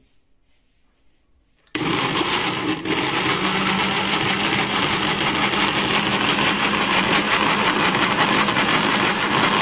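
Electric mixer grinder switching on about two seconds in and running steadily, grinding chopped tomatoes into a paste.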